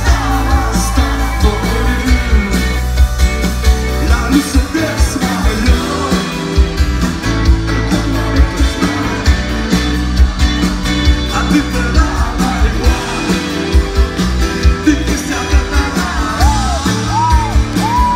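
Spanish indie rock band performing live: a male lead vocal sung over electric guitar, bass and a steady drum beat.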